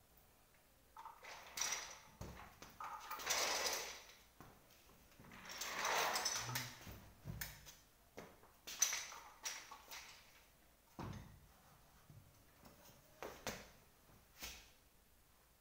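An executive office chair being handled and turned over during repair: scraping and rustling swishes as its parts shift, then a few sharp knocks in the second half.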